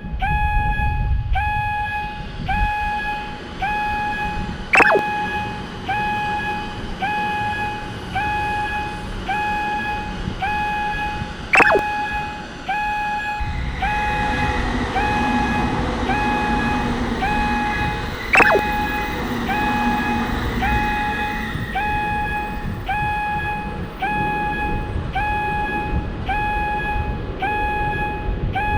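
Japanese level crossing's electronic warning bell ringing, a steady repeating ding about once a second. From about halfway a train's rumble and motor hum join it. Three brief sharp downward swoops cut in at even intervals, about seven seconds apart.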